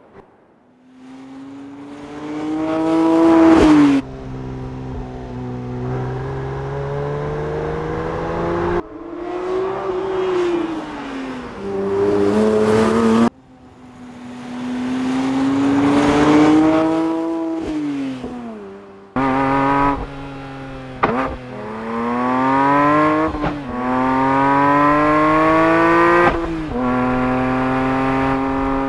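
Porsche 911 GT3 S/C's naturally aspirated 4.0-litre flat-six engine revving hard, its pitch climbing and falling several times. A run of quick upshifts comes past the middle: the pitch drops sharply and climbs again each time. The sound is broken by abrupt cuts between takes.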